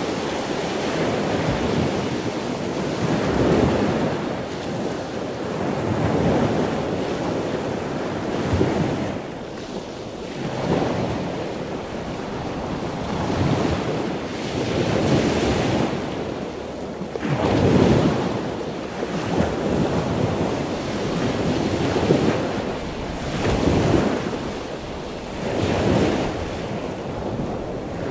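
Rushing sound of ocean waves, swelling and falling back about every two seconds.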